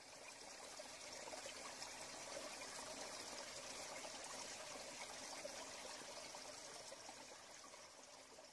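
Faint running water trickling steadily, fading in over the first couple of seconds and fading out near the end.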